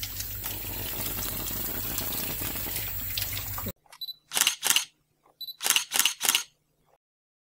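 Steady background noise that cuts off abruptly a little under four seconds in, followed by camera-shutter click sounds in quick clusters of two or three, each cluster preceded by a short high beep, against silence.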